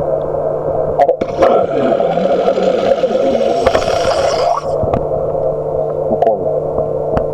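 Torpedo launch from a 1/32 RC model Type VIIC U-boat: a sharp click about a second in, then about three seconds of rushing hiss with wavering, gliding tones that cuts off suddenly, over a steady hum.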